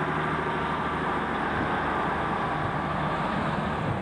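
Diesel engines of a British Rail Class 150 Sprinter multiple unit running steadily at the platform: an even, unchanging engine hum.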